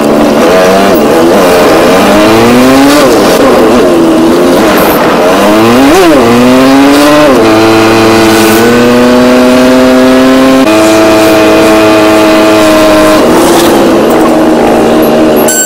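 Car engine heard from inside the car while driving, with road noise. The engine note climbs and drops back several times as it accelerates and changes gear, then holds steady while cruising.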